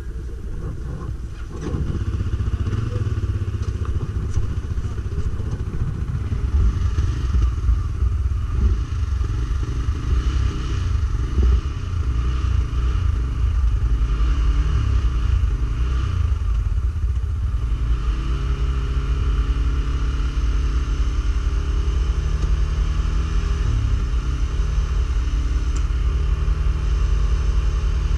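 Stels Guepard 850 ATV engine running under changing throttle, rough and uneven at first, then holding a steadier note from about two-thirds of the way through.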